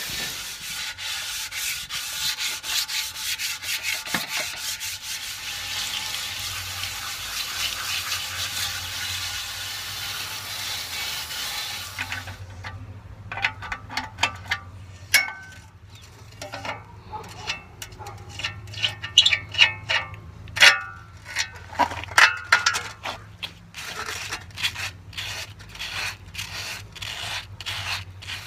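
A steady spraying hiss for about the first twelve seconds, then irregular strokes of wet/dry sandpaper rubbed by hand over a rusty metal tractor seat: wet sanding to rough up the old paint before repainting.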